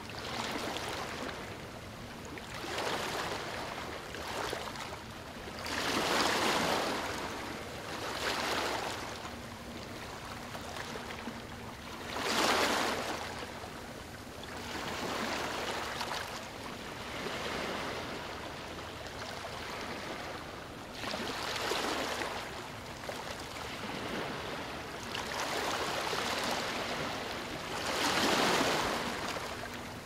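Ocean waves breaking and washing up the shore one after another, the sound swelling and ebbing every few seconds, with some surges clearly louder than others.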